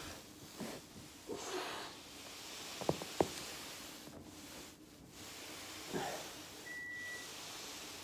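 Two sharp joint cracks about a third of a second apart, a few seconds in, from a body being worked on a foam roller. Softer rustling and breathy noises come before and after.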